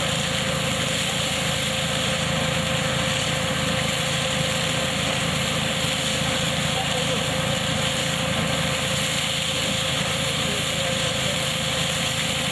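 KF-501 hazelnut harvesting machine running with its tractor, a steady mechanical drone at constant speed and level.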